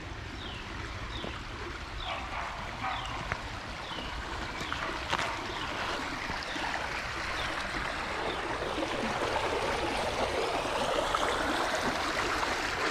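Creek water running over and between rocks, a steady rush that grows louder toward the end. A run of short, high falling chirps repeats through the first half.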